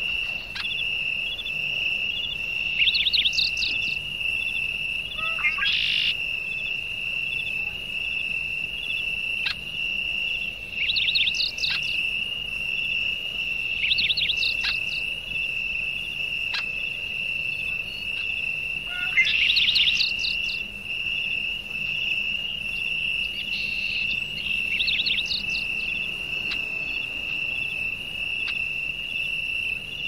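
A steady, high-pitched insect trill that holds one pitch without a break, with short clusters of quick bird chirps every few seconds.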